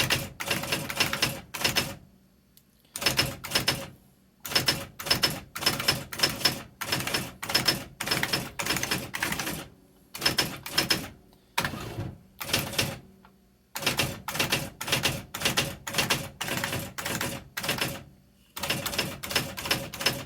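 IBM Personal Wheelwriter 6781 electric daisywheel typewriter printing characters: rapid runs of sharp print strikes in bursts of a second or two, with short pauses between them.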